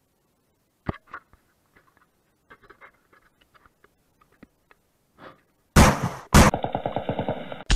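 A knock and faint scattered clicks as an action camera is handled and picked up, then, about two seconds before the end, a loud burst of rapid machine-gun fire.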